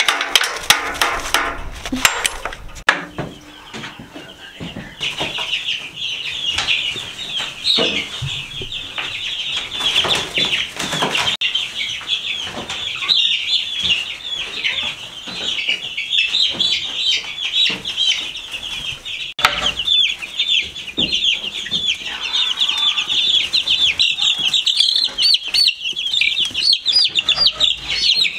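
Sticks banging on a metal wire cage for the first few seconds. Then a brood of young chicks peeping nonstop in a dense, high chorus, with occasional knocks and rustles as they are handled.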